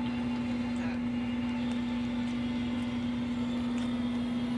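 A steady machine hum, one constant low tone over a soft hiss.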